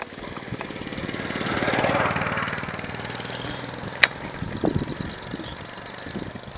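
A motorcycle engine passing by, growing louder for about two seconds and then fading away. A single sharp click about four seconds in.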